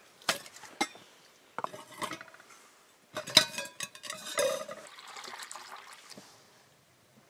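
Stainless steel camp pot, lid and nested bowl clinking and scraping as the cookset is taken apart, with one louder ringing clank about halfway through. Then water is poured into the pot, a splashing rush that lasts about two seconds and fades out.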